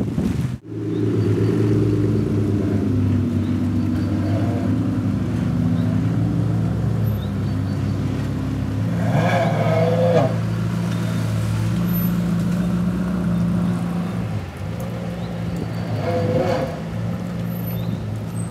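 Ferrari F40's twin-turbo V8 running at low revs as the car pulls away and moves slowly, with a steady low engine note.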